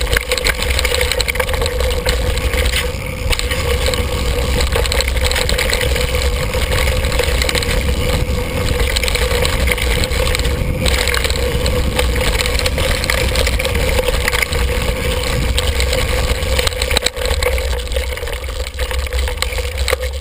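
Mountain bike descending a dirt forest trail at speed: wind buffeting the handlebar-mounted action camera's microphone and tyres and frame rattling over the rough ground make a loud, steady rush with a deep rumble and a constant hum.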